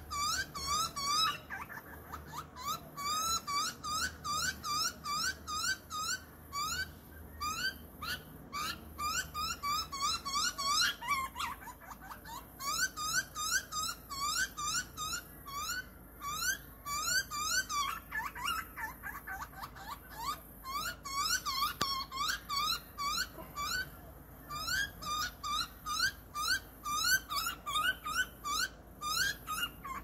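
Juvenile butcherbird begging for food: a rapid, unbroken run of short high calls, about three a second, each rising then dropping, with a couple of brief breaks.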